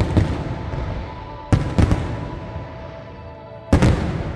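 Fireworks shells bursting: a quick double bang about one and a half seconds in and another loud bang near the end, each trailing off in a rumble, over music with steady held notes.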